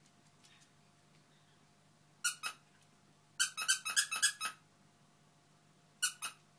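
A dog's squeaky toy being squeezed by hand. It gives two high squeaks about two seconds in, a quick run of squeaks a second later, and two more near the end.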